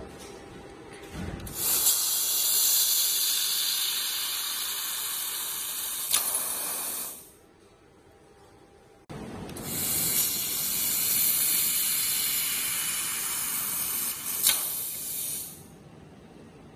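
Handheld fiber laser cutting head hissing as its gas jet blows through the cut in thin stainless steel sheet. Two long steady hisses of about five and six seconds, with a short break between and a faint click near the end of each.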